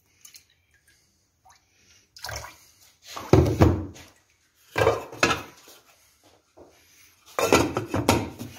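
Water splashing and sloshing in a pot of dough buns in four short bursts, with knocks as the pot is handled and a lid put on.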